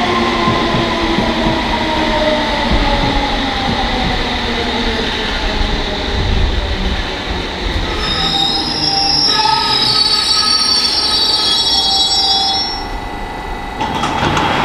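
London Underground S7 Stock train braking into a platform: its motor whine falls steadily in pitch as it slows. In the last few seconds before it stops it squeals high, then gives a short hiss near the end.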